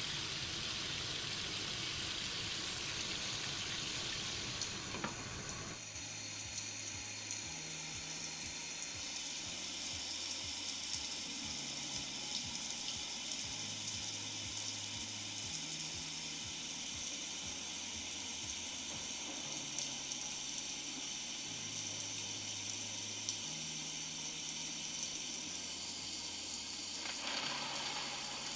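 Split dried milkfish (daing na bangus) deep-frying in hot oil in a wok on medium-high heat, sizzling steadily.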